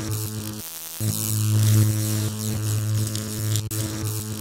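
Electric hum-and-buzz sound effect with crackling static, part of an animated logo sting. The steady hum cuts out briefly about half a second in and comes back louder about a second in.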